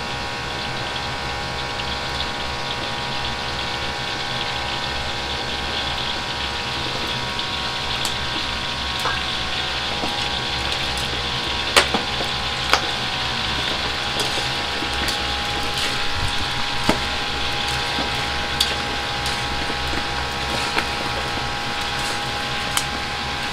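Hot oil in a wok sizzling and crackling as pieces of raw heart deep-fry in it, with scattered sharp pops. A steady mechanical hum runs underneath.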